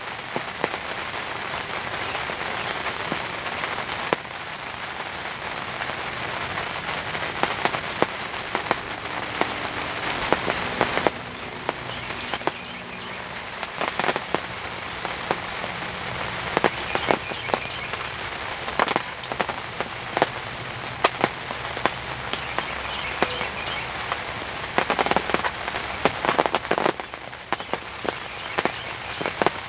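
Heavy rain falling steadily, with many individual drops landing close by in sharp, irregular taps.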